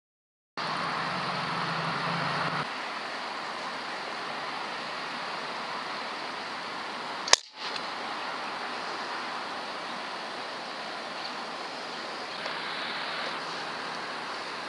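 One sharp crack of an Umarex Gauntlet .22 PCP air rifle firing, about halfway through, over a steady background hiss.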